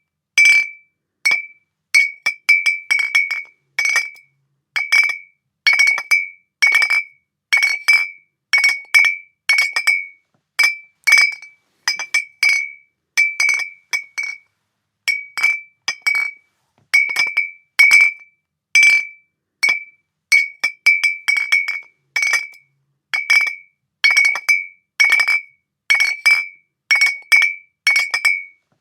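Glass bottles clinking together, over and over at an uneven pace of about one to two clinks a second. Each clink is a short, bright ring that dies away quickly.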